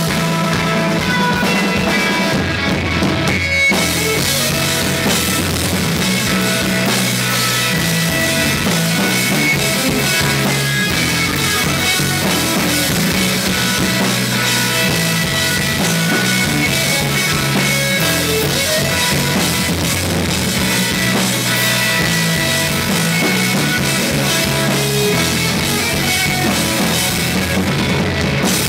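Live instrumental rock played by a trio: electric guitar, electric bass and a drum kit, loud and steady throughout.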